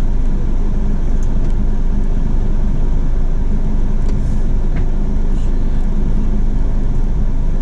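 Car engine and road rumble heard from inside the cabin while the car drives slowly: a steady low drone with no distinct events.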